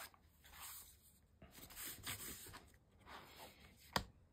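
Faint rustling and scraping of cardstock as a pocket page is slid onto an album spine and smoothed down by hand, in several soft swishes, with one sharp tap about four seconds in.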